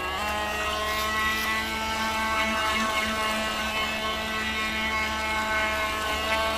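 Electric motor of a small radio-controlled racing boat (ProBoat 9-inch drive on a 2S LiPo) running at speed, giving a steady high whine as the boat circles on the water.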